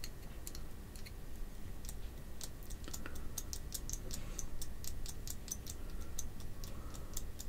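Light, irregular clicks and ticks, several a second, starting about two seconds in, as a screwdriver twists the Roland D-50 pitch bender's potentiometer shaft back and forth to work the stiff, torch-warmed grease loose.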